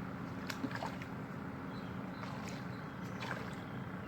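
Steady low hum with a few faint short ticks over it.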